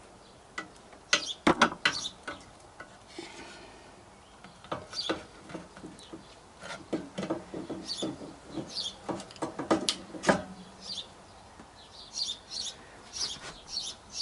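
Light metal clicks and knocks of motorcycle steering-head parts (seal, washers and top nut) being handled and fitted by hand onto the steering stem, coming in small clusters. Birds chirp in the background.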